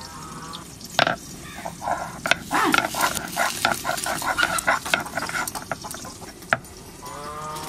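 Chopped ginger being crushed on a sil-nora, a flat stone grinding slab: the stone roller knocks and grinds against the slab in a quick run of strikes, about three a second, with a few sharper knocks.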